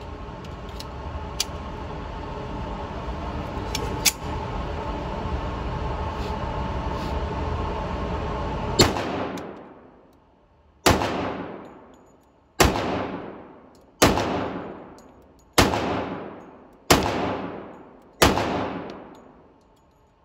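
Seven pistol shots fired slowly, roughly one every one and a half seconds, each with a long ringing echo off the walls of an indoor shooting range. The shots start about nine seconds in. Before them there is a steady rushing noise with a few faint sharp cracks.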